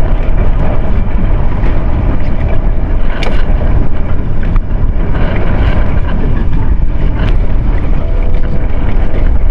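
A boat's engine running under way, with wind rumbling heavily on the microphone.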